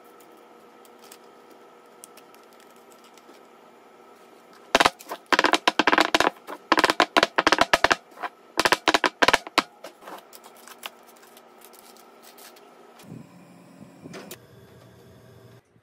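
A rapid, irregular clatter of sharp knocks on a square metal baking pan holding brownie batter, lasting about five seconds, then a few fainter taps. A steady electrical hum sits underneath before it.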